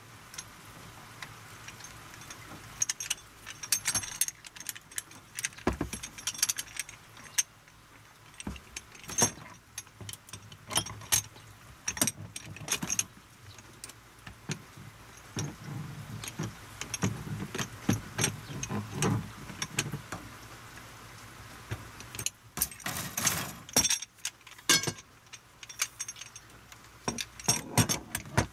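Metal Irector pipe joints and coated steel pipes being handled and fitted together by hand: short metallic clicks and clinks in irregular clusters, like jangling keys.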